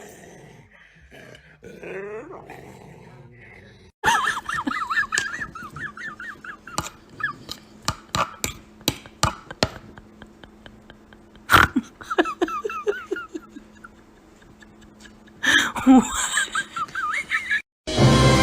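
A dog whining and yelping in high, wavering cries, broken up by sharp clicks.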